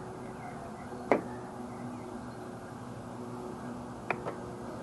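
Sharp clicks from handling the side mirror's turn-signal assembly and its wiring: one loud click about a second in, then two fainter ones close together near the end, over a steady low hum.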